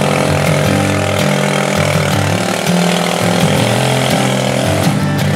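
Modified riding lawn mower's engine running hard as it churns through deep mud, under the instrumental break of a country song.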